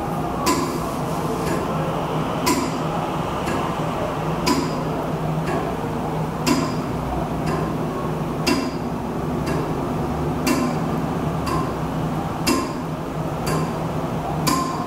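Steady mechanical ticking, about one tick a second with every other tick louder, over a constant low hum.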